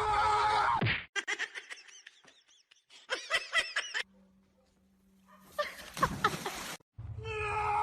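Several short animal calls, one after another, with abrupt cuts between them.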